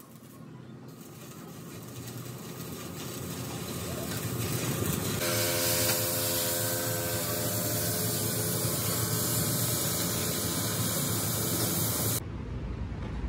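A steady hiss that builds over the first five seconds, then holds until it cuts off abruptly about a second before the end.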